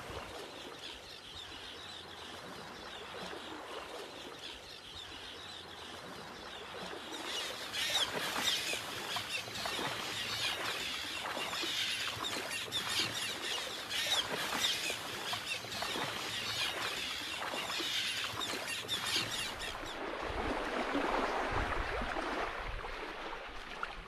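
Small waves lapping on a sandy shore, the shallow water fizzing and crackling as it washes over the sand. The crackling grows louder about seven seconds in and eases off near the end.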